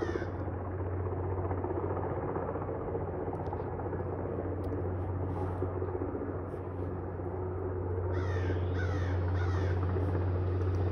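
Steady low drone of a helicopter flying nearby. A crow caws right at the start and again about four times in quick succession around eight seconds in.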